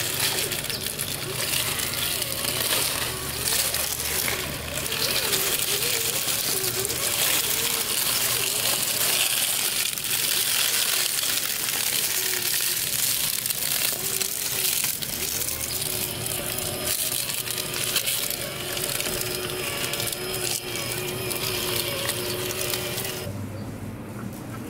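Traxxas TRX-4 Sport RC crawler driving over dry fallen leaves: a dense crackle of crunching leaves, with the truck's electric motor whining and wavering in pitch underneath. The crackle drops away near the end as the truck moves onto grass.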